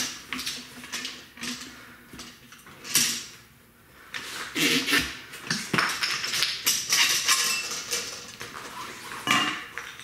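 Irregular clatter, knocks and scrapes of tire-changer tools being handled and pulled from a freshly mounted tire: small wooden blocks coming out from between bead and rim and the Rabaconda changer's metal mounting bar and duck head knocking against the stand. The knocks thin out for a second or two, then come thick and fast in the second half.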